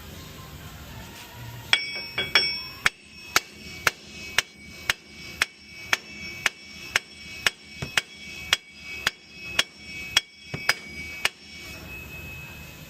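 Heavy hammer striking a Ford F-150's stuck front wheel hub bearing to drive it loose: about twenty ringing metal-on-metal blows at roughly two a second, starting a couple of seconds in and stopping near the end. The hub is seized in tight.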